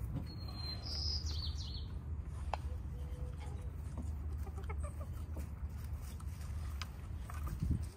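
Backyard hens clucking softly and pecking and scratching in straw, with small scattered clicks. A brief high chirp comes about a second in, all over a steady low rumble.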